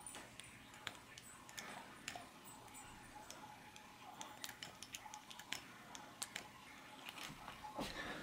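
Faint, irregular small metallic clicks and ticks as a hand grease gun is worked into a caged ball bearing, greasing between the balls.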